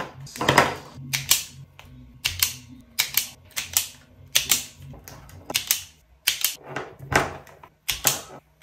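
A run of sharp, dry mechanical clicks, many in quick pairs, about one to two a second, from hand work wiring small endstop microswitches to JST connectors.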